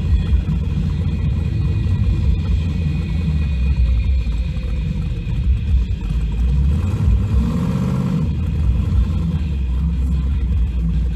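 A 1500-horsepower Chevy S10 street truck's engine rumbling unevenly at low speed, heard from inside the cab, with a short swell of a higher tone about seven seconds in.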